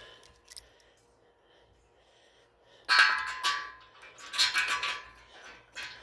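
A dog vocalizing in two loud bursts, the first about three seconds in and the second about a second later.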